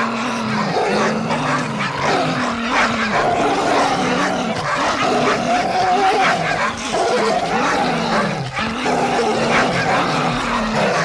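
Several dogs barking aggressively, with dense, overlapping barks and no let-up, over a lower, wavering growl.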